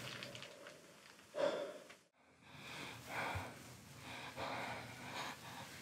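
A person breathing hard and gasping, with a sharper gasp about a second and a half in, then repeated heavy breaths.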